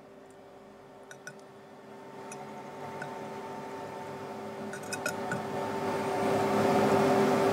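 Small wire whisk stirring dry cake-mix crumble in a bowl: a scratchy rustle that grows louder as the stirring goes on, with a few light clinks of the wire against the bowl. A steady hum runs underneath.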